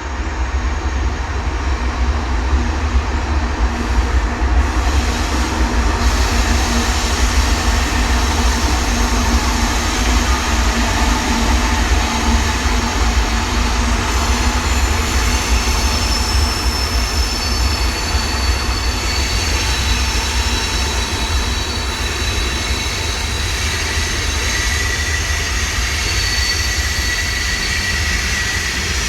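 Train running on rails: a steady, loud rumble of wheels and cars, with thin high wheel squeals coming in about halfway through.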